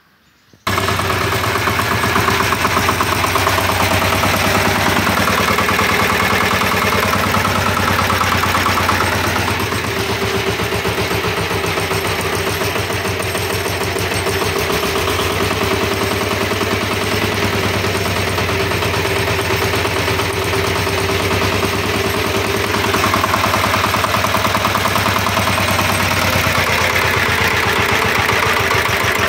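Kentavr 1010DE walk-behind tractor's single-cylinder diesel engine running steadily, just after being started. It runs a little lower from about ten seconds in and picks up again a few seconds before the end.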